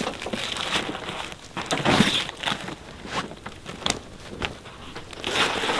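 Awning poles being handled while the awning is set up: scattered knocks and clicks with rustling in between.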